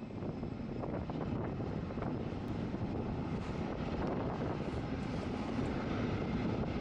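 Steady rumble of jet aircraft noise around the airport apron.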